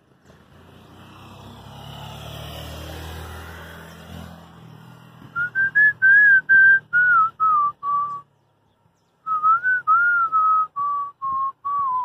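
A person whistling a tune in short clear notes, two phrases that drift downward in pitch with a brief pause between them, after a low rumble that swells and fades over the first few seconds.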